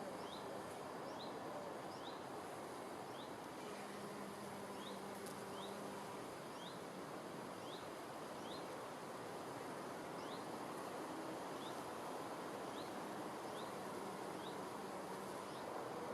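Outdoor nature ambience: a small bird repeats short, high, upward-sweeping chirps about once a second over a steady background hiss, and a faint low buzz passes twice, like an insect flying by.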